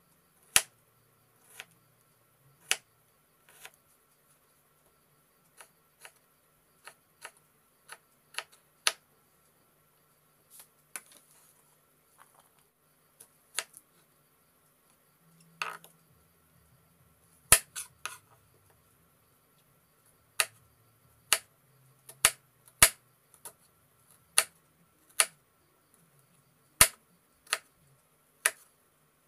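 Kitchen knife cutting on a wooden chopping board, slicing tomato and then a red onion: sharp single knocks each time the blade strikes the board, irregular at about one a second, louder and more frequent in the second half.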